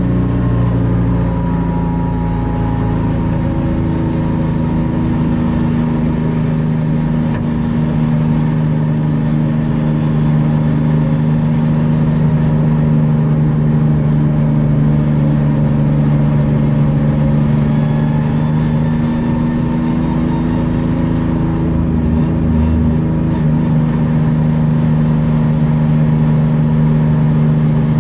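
V6 engine of a Camaro-bodied Sprint Race car heard from inside the cockpit, running hard at high revs with its note holding nearly steady.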